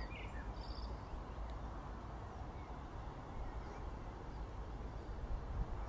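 Outdoor background: wind rumbling on the microphone with a steady hiss, and a few faint bird chirps.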